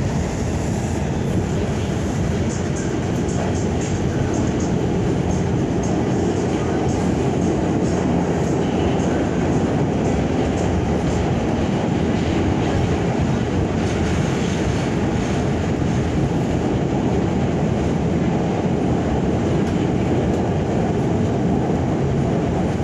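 An R46 subway car running at speed, heard from inside the car: a steady rumble of wheels on rail, with faint clicks from the track.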